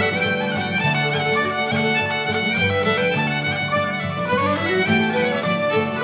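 Traditional Irish reel played on fiddle over low chordal accompaniment, the fiddle running in quick stepped notes.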